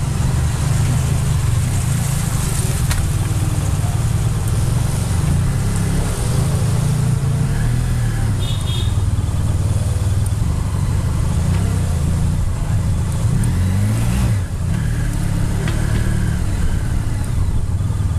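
Adventure motorcycle engine running at low speed, heard close up from the bike carrying the camera, a steady low rumble. The revs rise briefly about thirteen seconds in and drop back again.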